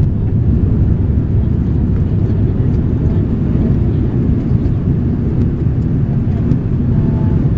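Steady roar of engine and airflow noise heard inside the passenger cabin of an Airbus A340-300 climbing out after takeoff, its four CFM56 engines running at climb power.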